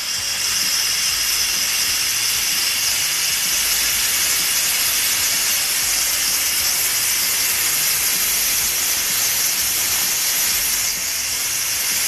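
ChefKing electric pressure cooker venting steam through its pressure-release valve in a steady, loud hiss. The pressure is being let out after cooking so the lid can be opened, and it is still high.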